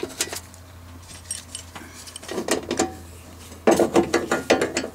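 Metal wrench clinking and rattling against the sheet-metal electrical box cover of a furnace while its fastener is tightened. There are scattered light clicks, then a louder cluster of clanks about three and a half seconds in.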